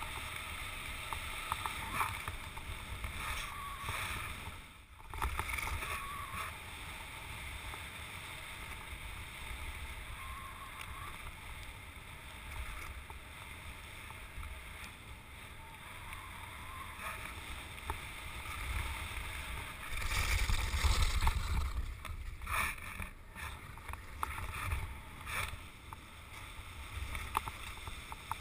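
Wind buffeting the microphone and skis hissing over snow-covered ice while kite skiing, with a stronger gust of rumble about two-thirds of the way through.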